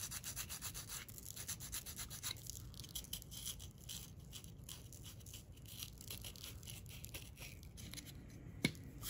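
Fingertips rubbing and scratching dried salt off a small painted 3D-printed plastic model skip, a fast, faint, continuous scrubbing. The salt is being rubbed away to lift the top paint and show the rust-brown undercoat. A single sharp tap near the end.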